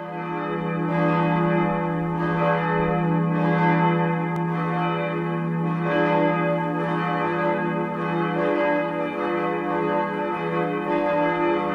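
Church bells ringing, with a new stroke about every second over a steady low hum of the bells' sustained ringing.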